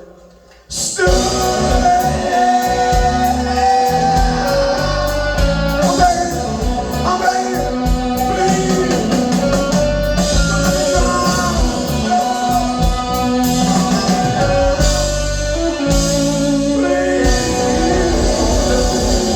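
Live rock band playing loudly: electric guitar over bass and drums with steady cymbal ticks. The band comes in abruptly about a second in, after a brief pause.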